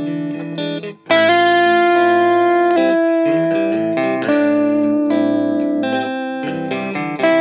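Fender Stratocaster electric guitar played through a Fender Blues Junior amp: a slow melodic lead of long sustained notes. Near silence for a moment about a second in, then a loud note rings out.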